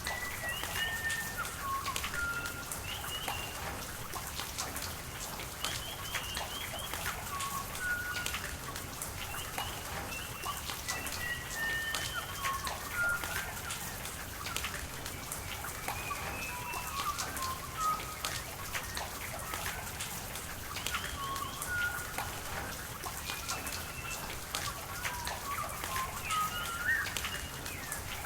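Steady rain with many scattered drips, and birds calling over it in short groups of pitched chirps every few seconds.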